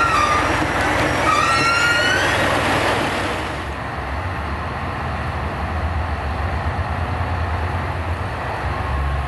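A high squealing tone that dips and then climbs again over the first two seconds, then a steady low rumble from the diesel engines of a JR West KiHa 187 express railcar as it pulls out.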